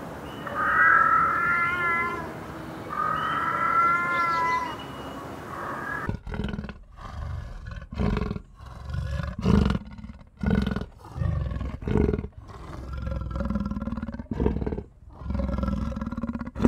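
Animal calls: several high, wavering cries in the first six seconds, then after an abrupt change a series of deep calls repeated about once a second.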